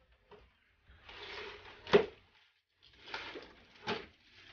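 Gift wrapping and tissue paper rustling as they are handled and pulled at, in two stretches, each ending in a sharp crinkle or knock, the louder one about two seconds in.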